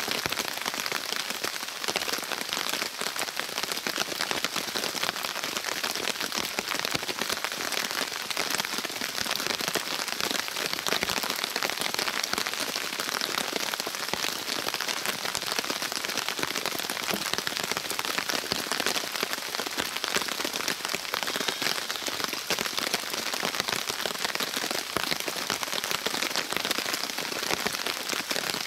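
Steady rain: a dense, even hiss of many small drops striking surfaces.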